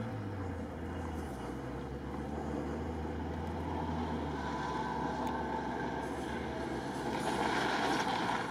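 UAZ Patriot SUV's engine running as it drives over rough off-road terrain, a steady low drone that gets louder near the end.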